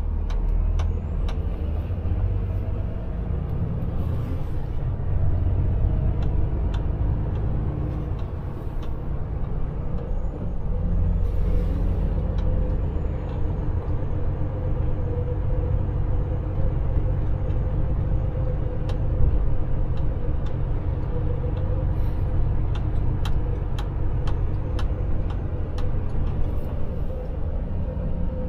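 Volvo FH Aero truck heard from inside the cab while driving slowly: steady low engine and road rumble with a faint steady whine. A few brief hisses come in the first half, and light clicks are scattered through.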